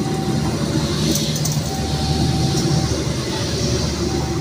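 Coaches of a Pangrango passenger train rolling past close by: a steady rumble and rattle of steel wheels on the rails, with a faint high whine that comes and goes.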